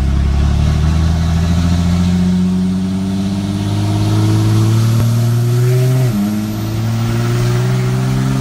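Pickup truck engine heard from inside the cab, pulling under acceleration with its pitch rising steadily. About six seconds in the pitch drops sharply at a gear change, then starts climbing again.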